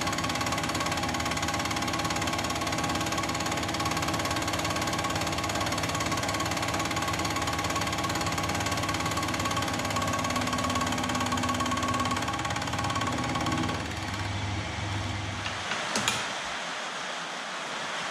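Mill-drill motor running with a steady whine while a cutter decks the top face of a casting; the spindle stops about three-quarters of the way through, followed by a sharp click.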